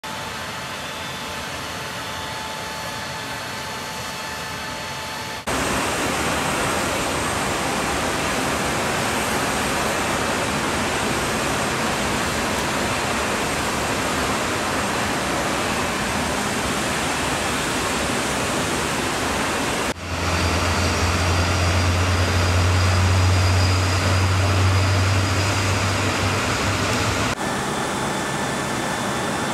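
Steady jet aircraft engine noise on a flight line, a steady rushing roar, changing abruptly in level at each of several cuts. About two-thirds of the way in a strong deep hum joins for several seconds.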